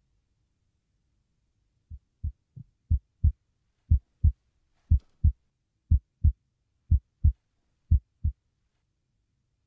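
Heartbeat: low thumps in lub-dub pairs, about one pair a second, starting faint and soon reaching full strength.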